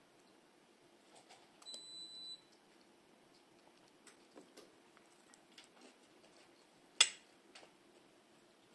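Quiet room with a few faint clicks of a metal spoon against a ceramic soup bowl, a short high electronic beep about two seconds in, and one sharp clink about seven seconds in.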